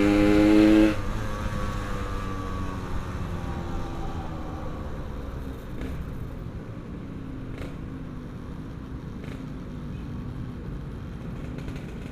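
Yamaha RX-King's two-stroke single-cylinder engine running hard, then the throttle is shut about a second in and the engine note falls away as the bike slows. It settles into a low, uneven running note with a few faint ticks.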